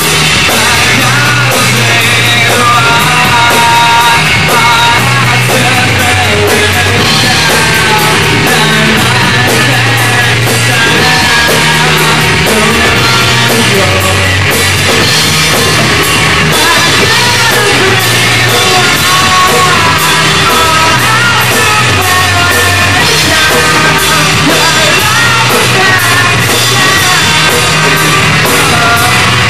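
Loud live rock band playing: electric guitar and drum kit, with singing over them.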